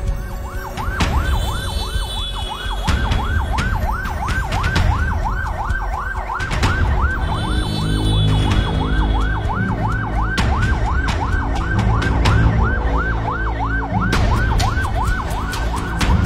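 Ambulance siren wailing in a fast yelp, its pitch rising and falling about three times a second without a break, over a deep rumble with sharp hits.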